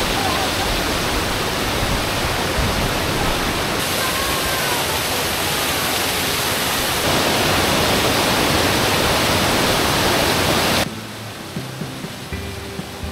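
Steady, loud rush of a mountain creek tumbling over rocks and cascades. About eleven seconds in it cuts off suddenly to a much quieter passage where soft music with held notes begins.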